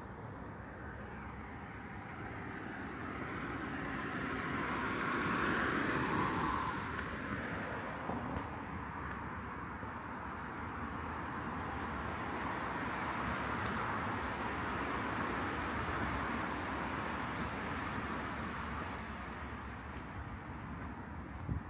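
Road traffic passing, with no clear tone of its own: one vehicle swells and fades about five to seven seconds in, then a broader, steadier wash of traffic follows.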